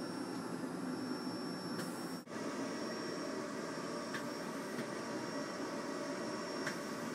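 Z-Corp powder 3D printer running: a steady mechanical whir and hiss with a faint high whine and a few light clicks. The sound drops out very briefly a little over two seconds in.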